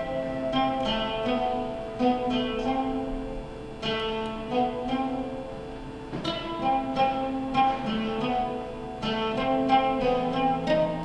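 Live acoustic ensemble playing an ancient-Greek-style medley: a plucked lute picks out a melody of short, quickly decaying notes over lower held notes.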